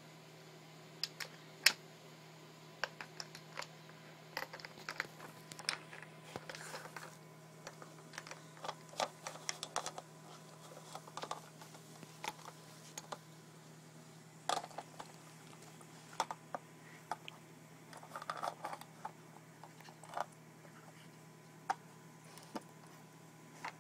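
Irregular hard plastic clicks and knocks from a corgi's nose and paws working the lids and compartments of an Aikiou plastic puzzle feeder, with a couple of short scrapes.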